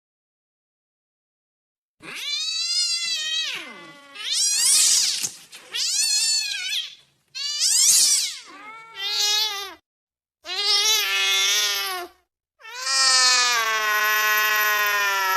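An angry domestic cat yowling: about seven long, drawn-out howls that rise and fall in pitch, starting about two seconds in after silence, the last held for a few seconds.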